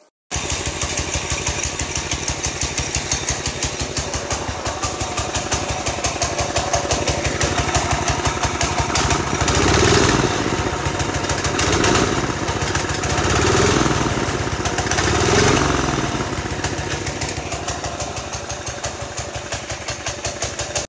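A chopper motorcycle's engine running, its firing pulses steady and even, with the revs blipped up four times about halfway through.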